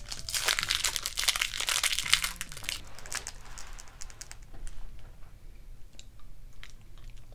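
Plastic candy wrapper of a Frunas taffy slab crinkling as it is peeled open, loud and dense for about the first three seconds, then only a few faint crackles.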